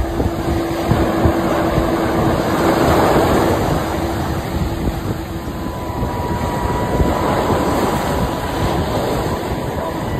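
Surf washing through shallow water with wind buffeting the microphone. A steady tone runs underneath and moves to a higher pitch about halfway through.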